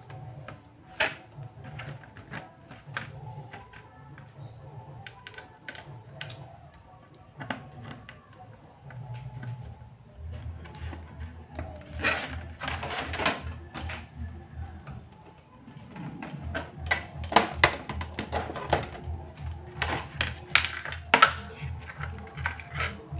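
Sharp clicks and knocks of a plastic monitor housing being handled and fitted together as the LCD panel is seated in its rear cover, heaviest in two clusters past the middle. Background music runs underneath.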